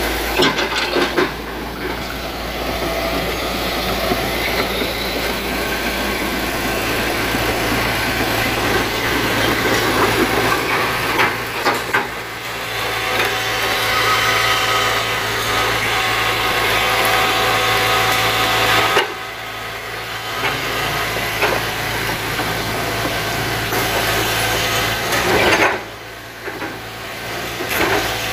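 Hitachi crawler excavator's diesel engine working under load, with crackling and snapping of wood and fronds as it pushes over and uproots an oil palm tree.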